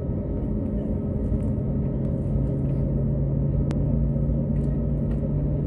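Jet airliner cabin noise while taxiing: the engines' steady low rumble with a steady hum, and a single sharp tick about two-thirds of the way through.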